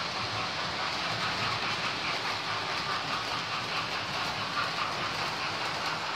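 Model railway trains running round the layout: the steady whir and rattle of their small electric motors and metal wheels on the track.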